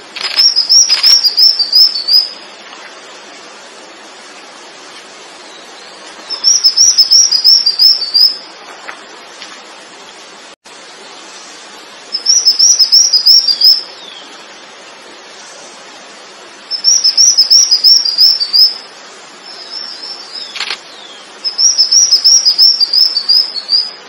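A small songbird singing a short phrase of about eight rapid, high, evenly repeated notes, five times at intervals of about five seconds, with a few sharp single call notes between the phrases.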